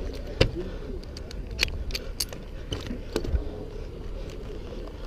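Lineman's pole-climbing gear on a wooden utility pole: about half a dozen sharp, scattered clicks and knocks of metal hardware and climbing gear against the wood, over a steady low rumble.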